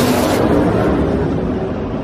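An F-35B Lightning II's single turbofan jet engine roaring as the jet flies past overhead. About half a second in, the high hiss drops away as it passes, leaving a lower rumble as it moves off.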